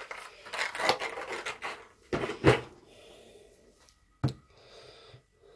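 Handling noise of objects being moved about by hand: rubbing and scraping, then two knocks about two seconds in and a single sharp click a little after four seconds.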